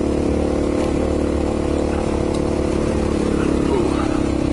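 Honda XR650L's single-cylinder engine running steadily under light load as the motorcycle climbs a rocky trail.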